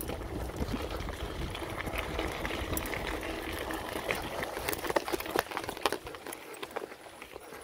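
Mountain bike rolling over a dirt and leaf-covered trail, heard from the handlebars: steady tyre noise with a dense rattle and clicking from the bike, and a few sharper knocks about five seconds in. A low wind rumble on the microphone eases off in the second half.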